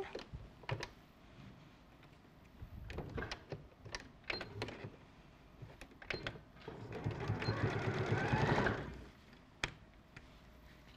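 Sewing machine stitching in one short run of about two seconds, some seven seconds in, after a scatter of light clicks and knocks.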